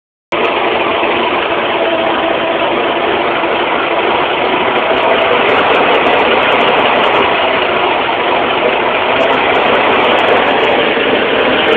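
1920s Scripps six-cylinder flathead marine engine running steadily, its sound starting abruptly just after the start and growing slightly louder toward the end.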